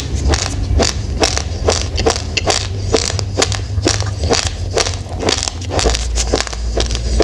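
A person chewing a mouthful of raw, uncooked rice grains: dense, irregular crunching, about three or four crisp cracks a second. A low rumble runs underneath and grows stronger near the end.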